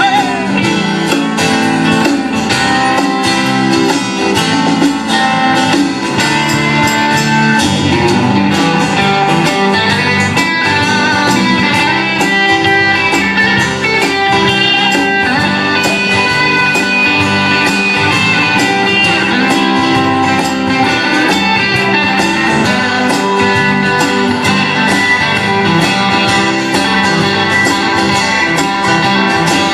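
Live country band playing an instrumental break, a guitar taking the lead over a steady beat. A shouted "Hey!" comes right at the start.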